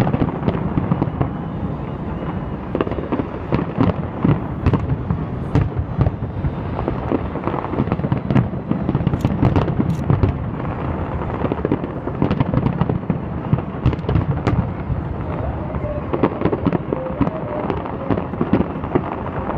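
Fireworks display: many aerial shells bursting in quick, irregular succession, sharp bangs and crackles over a steady low rumble.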